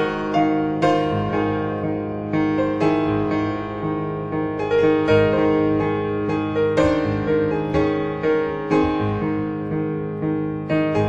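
Piano music as a slide-show soundtrack: a slow melody over held chords, with a new note or chord struck every half second to a second.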